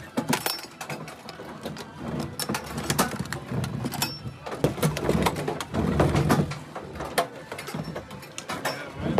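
Irregular metallic clicks and clatter from handling metal ammunition cans and belted rounds, with some low handling rumble near the middle.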